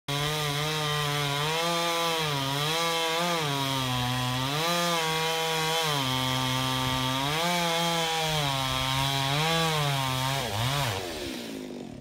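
Chainsaw cutting into a pine trunk, its engine pitch dipping repeatedly as the chain bites and recovering as the load eases. Near the end the pitch falls away and the sound dies down.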